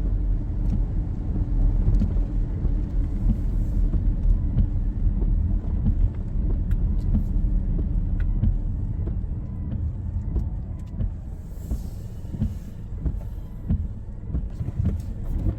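Car driving on the road, heard from inside the cabin: a steady low rumble of engine and tyres with scattered light ticks.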